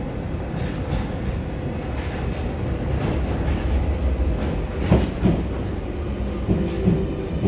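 Paris Métro MF77 train pulling into the station. Its low rumble builds as it nears, under a steady motor whine, and the wheels clack over the rail joints as it passes close, from about five seconds in.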